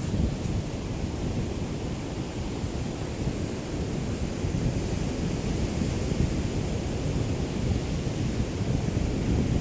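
Small, calm sea waves lapping on a beach, a steady wash of noise with wind buffeting the microphone as a low rumble.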